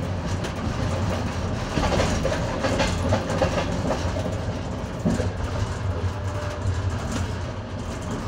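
Passenger train carriage in motion: a steady low rumble of wheels on rails with some clickety-clack, heard from inside the carriage's toilet compartment.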